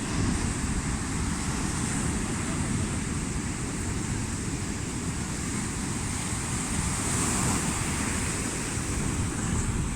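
Sea waves washing and breaking in a steady rush, with a low wind rumble on the microphone. A wave surges slightly louder about seven seconds in.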